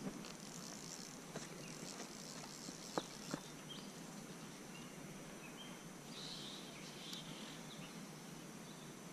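Faint evening insect trill, steady and high, with scattered short bird chirps, and two sharp clicks about three seconds in.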